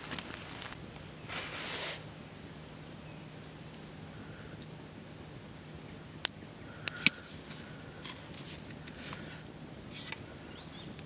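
Quiet outdoor bush ambience: a brief rustle, a few sharp clicks around the middle, and faint short high chirps now and then over a faint low hum.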